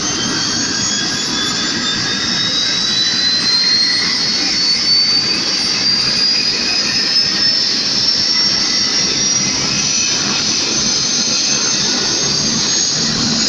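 Turbine helicopter on the ground spooling up: a high turbine whine rising steadily in pitch over a constant rushing rumble of engine and turning rotor.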